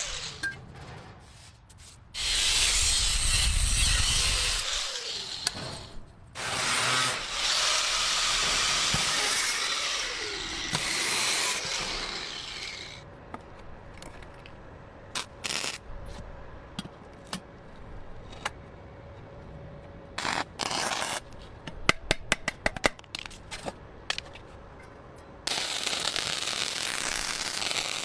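Workshop tool noise: a power tool runs in long loud bursts with pauses between them. In the quieter middle come scattered clicks and a quick run of clicks, and the tool runs again near the end.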